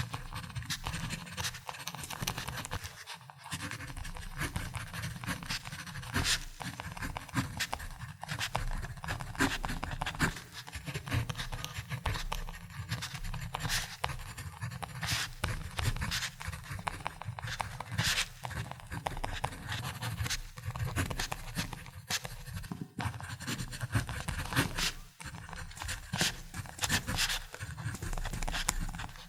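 Ballpoint pen writing on paper: a continuous scratchy rasp of the tip over the page, broken by many irregular short strokes and ticks.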